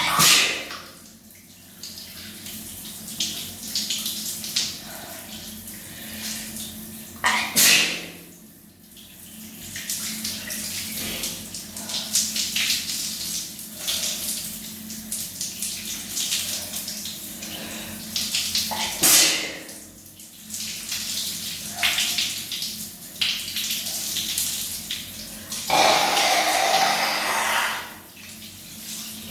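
Shower water spraying steadily, broken by three sudden loud sneezes: one at the very start, one about seven seconds in and one near twenty seconds. The sneezes are brought on by Chhinkni sneezing powder in someone with a head cold. Near the end a louder rush lasts about two seconds.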